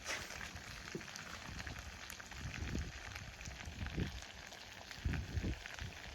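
Wood fire crackling: a steady hiss scattered with small sharp pops, with occasional low rumbles underneath.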